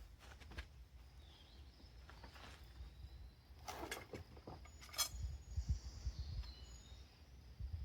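A few light metallic clinks and knocks from the parts of a hydraulic travel motor being handled and worked apart; the two most distinct come about four and five seconds in. Faint bird chirps in the background.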